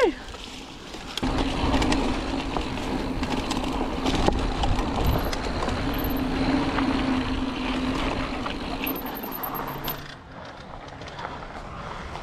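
Mountain bike rolling across a gravel parking lot: steady tyre and wind noise with a few brief high squeals. It quietens about ten seconds in as the bike slows.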